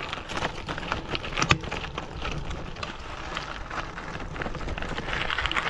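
Gravel bike tyres rolling over a loose gravel road, with a steady crackle of small stones under the wheels.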